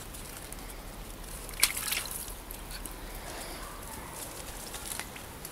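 A small dog wading into a shallow garden pond: a splash about a second and a half in, then faint sloshing of water around its legs.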